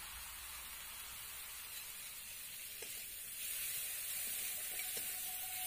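Masala paste frying in mustard oil in an aluminium kadai, giving a faint steady sizzle that gets a little louder past halfway, when a spatula stirs it with a few light scrapes.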